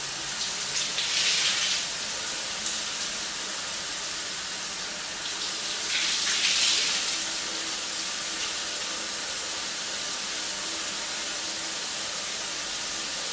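Shower spray running steadily, with the splashing growing louder briefly twice.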